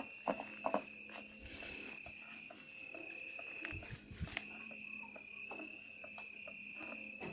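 Crickets trilling steadily, over a steady low hum, with a few soft knocks and clicks in the first second and again about four seconds in.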